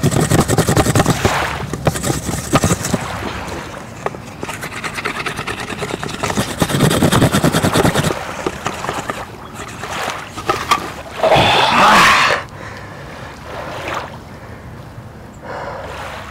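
Wooden hand drill spun fast between the palms against a wooden fireboard: rapid rubbing and scraping of wood on wood in long runs, with a loud burst lasting about a second, about eleven seconds in, then quieter.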